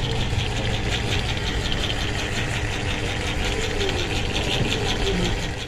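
An engine running steadily at idle, with a fast, even pulsing.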